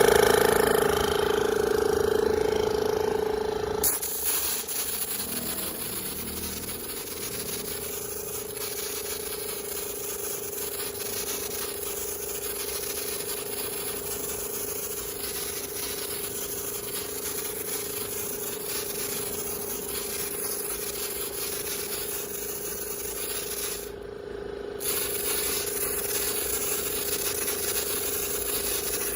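GOIZPER iK FOAM Pro12 hand-pumped pressure foam sprayer spraying: a steady hiss with a constant tone, loudest for the first few seconds and then settling. It cuts out briefly about 24 seconds in, then starts again.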